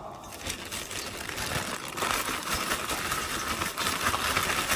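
Plastic zip-top bag crinkling as a piece of fish is put in and shaken in flour to coat it, the shaking getting louder about two seconds in.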